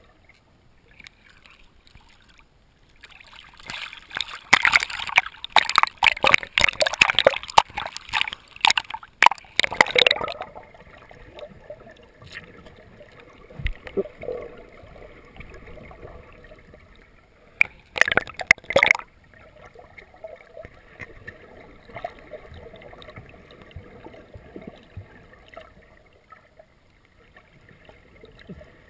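Water splashing and gurgling around a handheld underwater camera at the surface, in a long spell of loud crackling splashes early on and a short burst about two-thirds of the way in, with faint underwater hiss in between.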